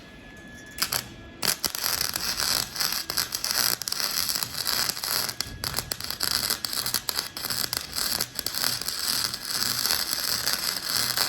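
Electric welding arc running on steel: an uneven hiss full of small pops, starting about a second and a half in.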